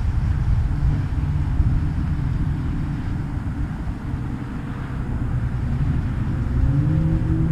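Wind rumbling on the microphone over the distant steady hum of a radio-controlled Flightline Spitfire 1600mm model plane's electric motor and propeller, its pitch rising near the end as the throttle or distance changes.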